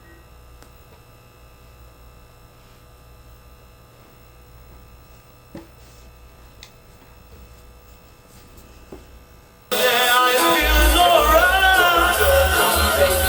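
Low steady electrical hum with a few faint clicks, then about ten seconds in a song with a singing voice and heavy bass starts abruptly and loudly over the speakers.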